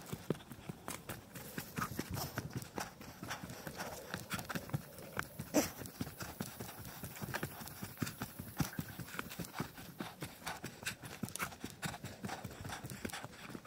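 Footsteps of a person walking at a steady pace down a dirt trail strewn with dry leaves and twigs, a continuous run of short steps, one louder step about halfway through.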